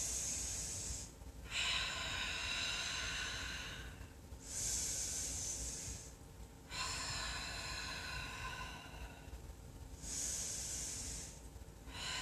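A woman breathing slowly and audibly through a held yoga pose, about three full breaths. Each breath is a short hissing breath of about a second followed by a longer, throatier one of about three seconds.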